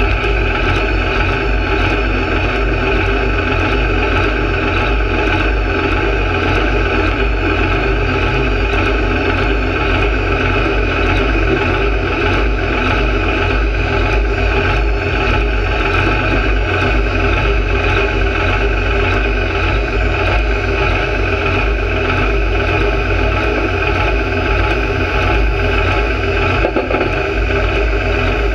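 Pulling tractor's engine idling steadily, close to the microphone, with no revving.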